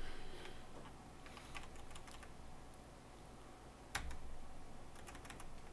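Computer keyboard typing: a few scattered, faint keystrokes, with one sharper key click about four seconds in and a short run of keystrokes near the end.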